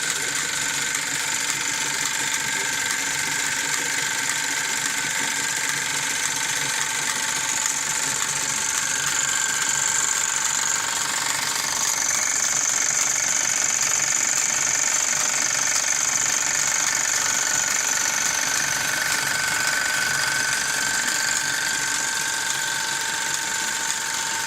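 Wilesco D24 toy steam engine running steadily and driving the belt-driven machines of a toy workshop: a continuous mechanical whirring with a high, steady hiss, a little louder from about halfway.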